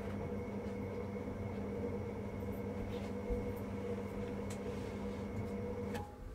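Worcester Bosch Greenstar 4000 gas combi boiler humming steadily at full power, burner and fan running, with a few faint clicks. About six seconds in the hum drops sharply as the burner shuts off once hot water stops being drawn, leaving the fan running on more quietly.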